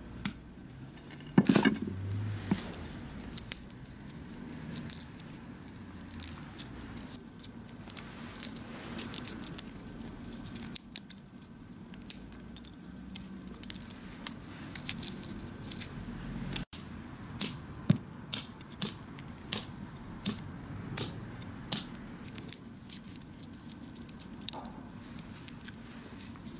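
A wooden mallet cracks a ginkgo nut shell with one loud knock about a second and a half in, followed by a long scatter of small sharp clicks and crackles as fingers break and pick apart the ginkgo shells on paper.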